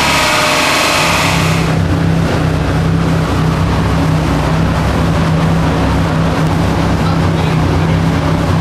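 Garrett GT35-turbocharged 2000cc Opel Astra engine running hard on a chassis dyno, its high-pitched sound cutting off abruptly under two seconds in as the run ends. A steady low drone follows.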